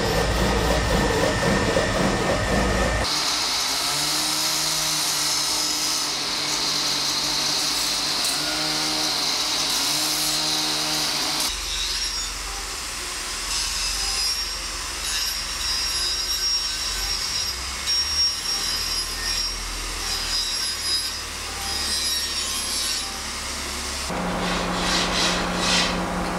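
Small handheld electric power tool working a white carving, its whine wavering in pitch as it bears on the piece. The sound changes in character at a few points through the stretch.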